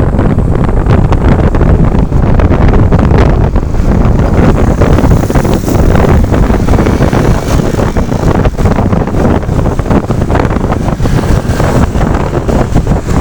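Loud, steady wind buffeting the microphone over the rumble of a moving road vehicle.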